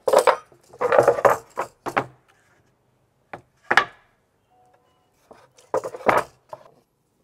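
Pieces of wood being handled, knocking and clattering against each other in short bursts. The loudest clusters come about a second in and again near six seconds.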